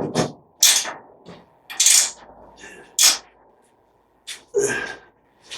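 Ratchet wrench working in short strokes, tightening the bolts on a tractor's snowplow bracket: a series of brief clicking, rasping bursts at an uneven pace.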